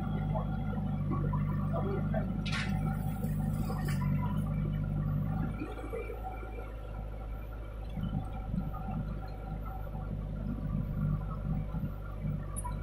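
Heavy diesel machinery engine idling steadily, with a brief hiss about two and a half seconds in. About halfway through, the steady low hum drops away into an uneven rumble.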